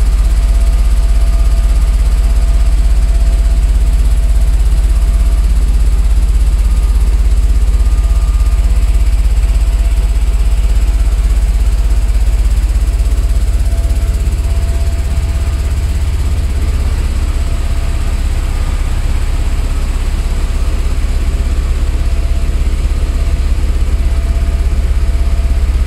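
Sand washing plant machinery running: vibrating dewatering screens, driven by vibration motors, shaking wet sand across their decks, heard as a steady deep rumble.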